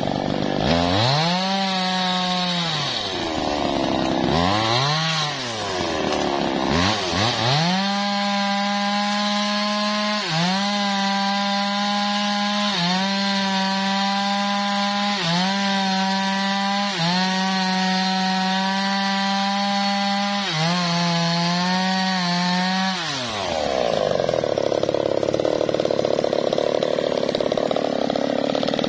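Two-stroke chainsaw cutting through a felled teak log: revved up and down twice, then held at high speed with short dips every two to three seconds as the chain bites. Near the end the pitch falls and the engine runs rougher and noisier.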